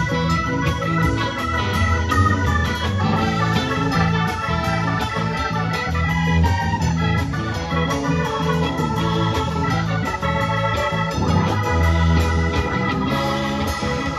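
Live rock band playing an instrumental passage: organ stands out over electric guitars, bass and a steady drum beat.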